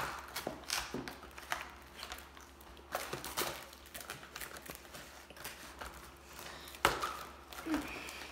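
Cardboard toy box and its plastic packaging being handled and torn open: scattered rustling, crinkling and light tapping, with a sharp knock about seven seconds in.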